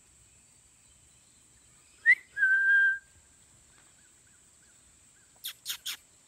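A short whistle about two seconds in: a quick upward slide into one held steady note lasting under a second. A few short, sharp high chirps follow near the end.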